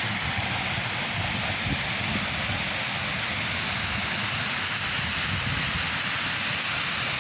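Waterfall with water rushing steadily.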